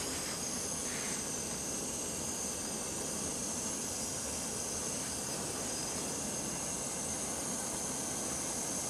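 Jetboil Flash gas stove burner running with a steady hiss.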